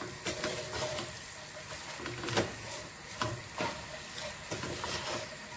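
Wooden spatula stirring shredded cabbage into masala in an aluminium pot, with irregular scrapes and knocks against the pot over a light sizzle.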